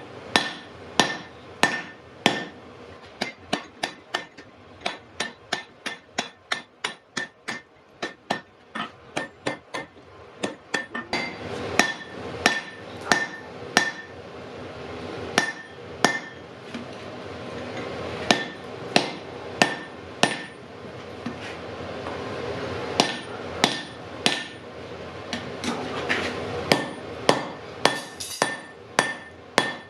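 Hand hammer forging hot iron on an anvil: a long run of regular blows, about two to three a second, each with a short metallic ring. A steady hiss underneath grows louder in the second half.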